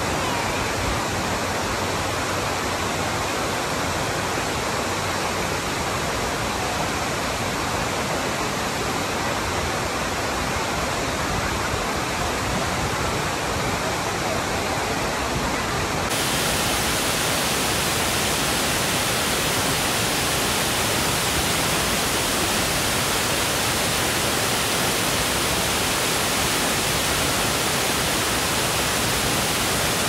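Kapuzbaşı waterfall: falling water making a loud, steady rush of noise. About halfway through the hiss turns suddenly brighter.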